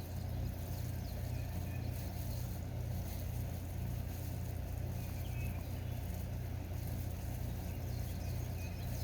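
A steady low hum, even in level throughout.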